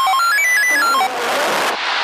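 A quick run of electronic beeps stepping up in pitch and back down again, over a loud rushing hiss that cuts off suddenly at the end.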